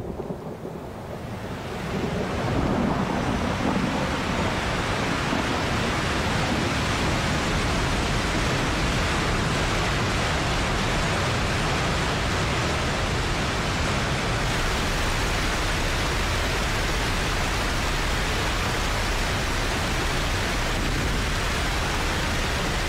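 Steady rushing storm noise that swells in over the first two seconds and then holds even.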